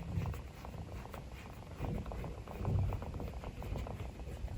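Pet rabbit rumbling: a low, fast, buzzing chatter of tiny clicks, swelling a couple of times, like a guinea pig's rumble.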